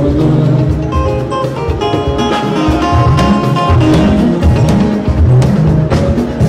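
Music with guitar, bass and drums.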